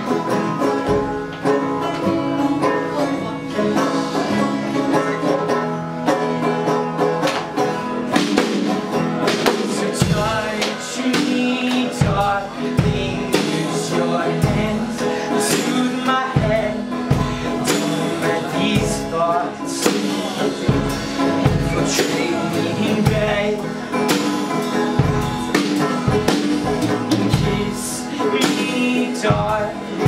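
A live acoustic folk punk band playing: strummed acoustic guitar and another plucked stringed instrument. About ten seconds in, a drum kit joins with a steady beat.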